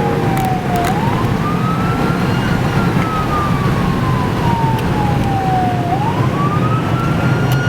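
Police car siren on wail: a single tone that climbs quickly and then falls slowly, cycling about every five seconds, over a steady rumble of engine and road noise.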